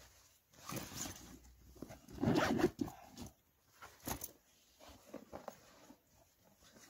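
Nylon backpack being packed and zipped shut: a few short rasping zipper pulls among rustling of the bag and a jacket stuffed into it, the loudest about two seconds in.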